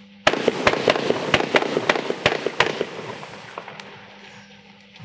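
Fan-fired 20 mm fireworks cake (WECO Frequency, 46 shots) going off: just after the start a rapid series of sharp launch shots, about four a second, over a dense hiss from the burning comets and stars. The shots stop after about two and a half seconds and the hiss fades away.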